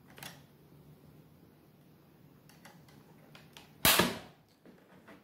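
Plastic snap-fit clips of an Acer Aspire E15 laptop case popping free as the keyboard deck is pried off the base. A few faint clicks come first, then one loud sharp snap a little under four seconds in.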